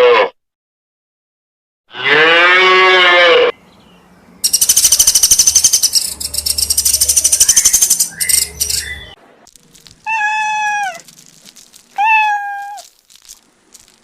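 A cow moos once. That is followed by a few seconds of rapid, high-pitched buzzing, and then a cat meows twice.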